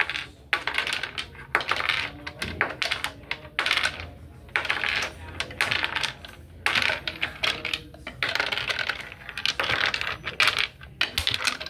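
Small wooden cubes clattering: grabbed from a pile and dropped over a wooden partition into a wooden box, knocking against the box and each other in quick bursts of clicks with short gaps between.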